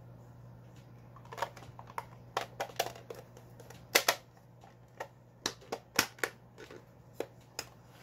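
Irregular clicks and knocks from a small black plastic project box being handled, its lid fitted back on and the box set down on a desk, with the sharpest clicks about four and six seconds in. A steady low hum runs underneath.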